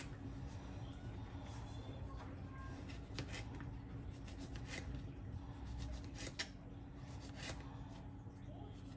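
Small kitchen knife slicing a tomato on a plastic cutting board: soft cuts with scattered light taps of the blade on the board, over a low steady hum.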